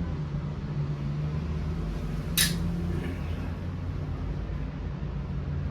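A steady low mechanical hum, with one sharp clink of a hard object a little over two seconds in.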